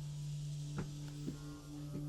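Quiet background music: low notes held steadily, with a few faint ticks.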